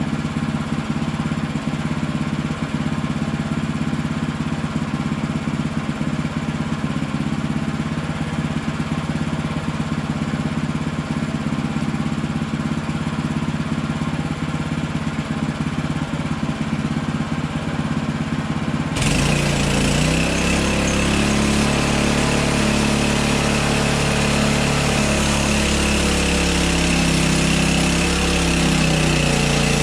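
Hudson Hunter band sawmill's gas engine running steadily. About two-thirds of the way through, the sound changes suddenly to a louder, harsher running whose pitch wavers.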